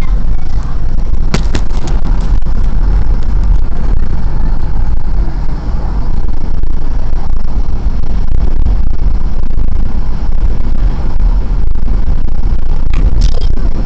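Car driving along a road, heard from inside the car: a loud, steady low rumble of road and engine noise. A few sharp clicks come about a second in, and another near the end.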